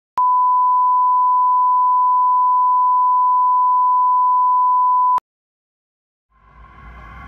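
A steady 1 kHz test tone, the kind used as an audio line-up tone at the head of a video master, held for about five seconds and cut off abruptly. Near the end, ambient music fades in.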